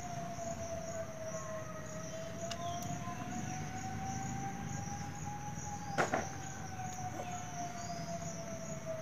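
A long, distant siren-like tone, held unbroken and slowly sinking and rising in pitch, over steady insect chirring, with one sharp click of pliers on wire about six seconds in.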